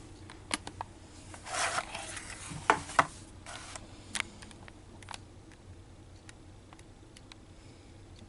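Handling of a 3M floppy-drive head-cleaning kit's plastic case and diskette: a brief scraping rustle about one and a half seconds in, then two sharp clicks close together near three seconds, with scattered lighter clicks before and after.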